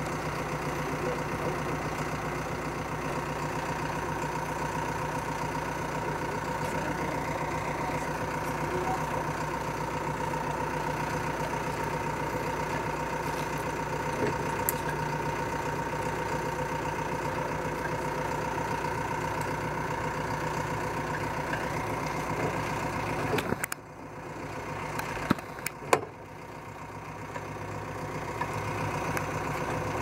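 Caterpillar 420E backhoe loader's diesel engine idling steadily. About three-quarters of the way through, the engine sound drops away sharply and a few sharp clicks follow. The engine sound then builds back up over the last few seconds.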